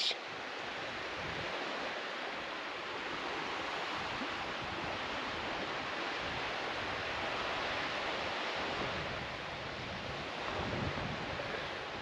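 Surf washing on a sandy beach: a steady, even rush that swells a little through the middle and eases near the end.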